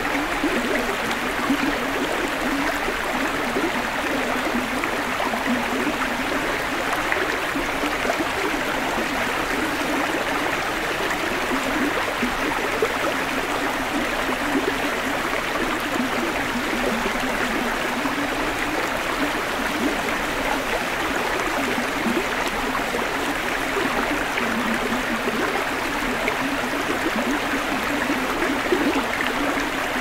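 Shallow creek water running steadily over rocks and pebbles.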